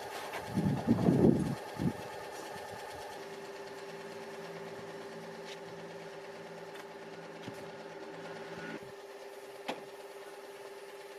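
Motorized sprayer pump running with a steady hum of several constant pitches while anti-moss treatment is sprayed through a long pole lance. A brief louder noise comes about a second in, a lower note drops out about nine seconds in, and there is a single click shortly after.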